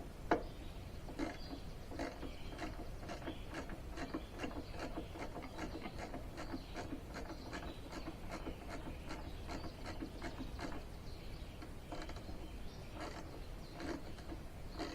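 Ratchet wrench with a 3/8 socket clicking as it is worked back and forth to turn a bolt, a few clicks a second in runs, pausing briefly near the end.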